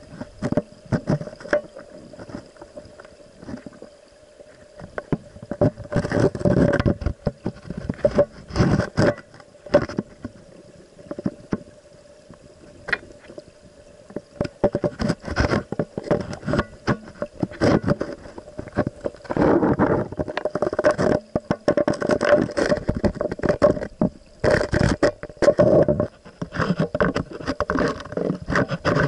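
Stream water heard through a camera held underwater: muffled rushing current with irregular clusters of knocks and scrapes as the camera shifts against the rocks, heaviest in the middle and the second half, over a faint steady hum.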